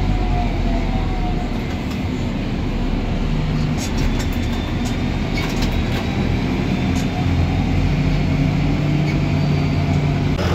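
Tractor engine running steadily on the road, heard from inside the cab: a low, even engine drone over tyre and road noise, with a few light clicks about halfway through.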